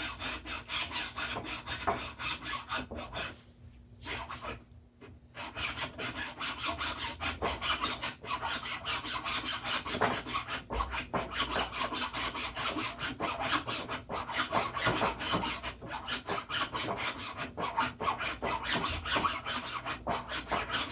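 Metal being worked by hand with a hacksaw or file: quick, even back-and-forth rasping strokes, pausing briefly about four seconds in before carrying on.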